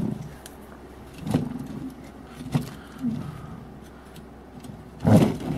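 Small plastic toy ATV being handled and turned on a tabletop: a few sharp plastic clicks and knocks, with a short low vocal sound near the end.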